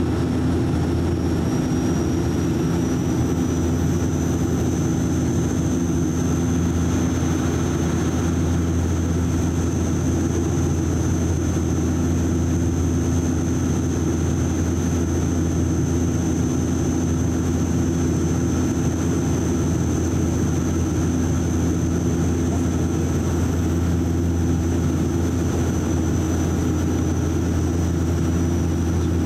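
Cabin noise of a DHC-8 Q400 turboprop airliner in flight: the steady drone of its propellers and engines heard from inside the cabin, with a thin high whine that edges up slightly in pitch a few seconds in and then holds.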